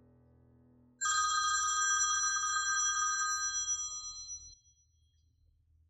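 Mobile phone ringing. A steady ring of high tones starts abruptly about a second in and fades away about three and a half seconds later. Faint background music is heard before the ring begins.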